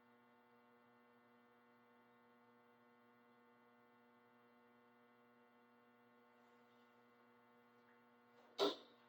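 Faint, steady electrical hum with evenly spaced overtones from the microphone and mixer chain, then one sharp drum hit near the end.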